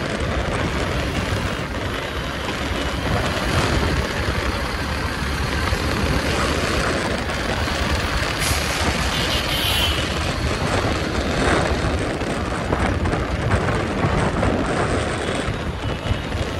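Steady rushing wind and road noise from riding on a motorbike through city traffic, with a deep rumble underneath.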